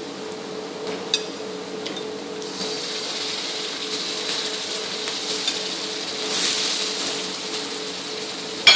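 Water poured into a hot wok of onion and spice masala sizzles: a hiss that builds from about two and a half seconds in and eases off near the end. A steady mechanical hum runs underneath throughout.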